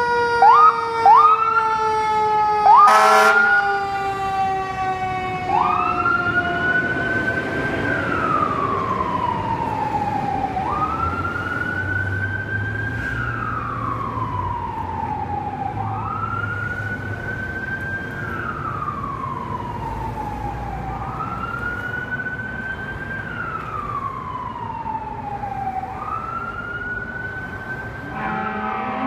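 Fire engine siren (2015 KME Predator) going off as the engine pulls out: several quick rising yelps and a loud horn blast about three seconds in, then a steady wail that rises fast and falls slowly about every five seconds, fading a little as the engine drives away.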